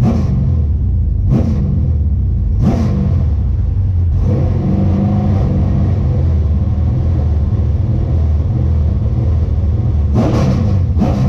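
Stock car V8 engine heard from inside the cockpit, blipped in short revs about once every second and a half, then held at a steady drone for several seconds. Near the end come a few quick revs in a row.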